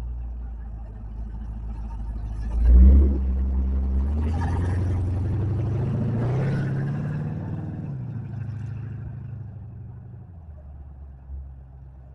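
Engine of a lowered square-body GMC pickup rumbling as it pulls out. About three seconds in it revs sharply, then accelerates away with a rising pitch and fades into the distance.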